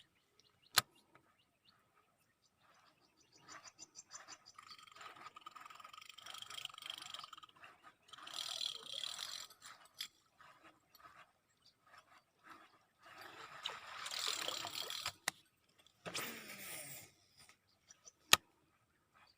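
Shimano Curado 201XG baitcasting reel working through casts and retrieves: the spool whirs out in two spells, the gears tick fast as the line is wound in, and there are a few sharp clicks.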